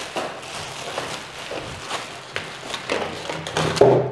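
Clear plastic packaging film crinkling and rustling irregularly as hands pull and handle it, with a louder crackle near the end.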